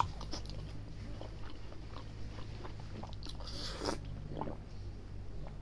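Close-miked, wet chewing and lip smacks of a man eating curry and rice by hand. A little past halfway there is a drink from a plastic cup, a hissy sip followed by a few swallows.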